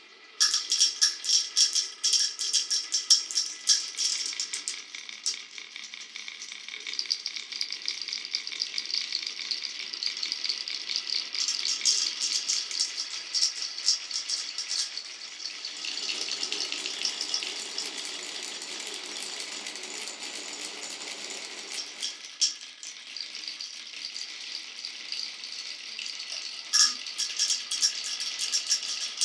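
Glass marbles rolling and clattering down a wooden marble run, a dense run of clicks and knocks that starts suddenly about half a second in. For several seconds past the middle a lower, steadier rolling rumble joins in.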